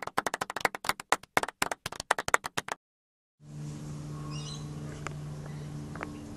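A rapid run of sharp clicks and crackles, about ten a second, that cuts off abruptly under three seconds in. After a moment of dead silence, backyard ambience with a steady low hum and a few faint bird chirps takes over.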